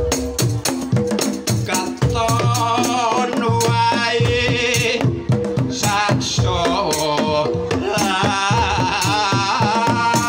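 Javanese gamelan playing a tayub gending: kendang drums and bronze metallophones strike a steady beat, with hanging gongs. About two seconds in, a sinden's wavering, ornamented vocal line comes in over the ensemble.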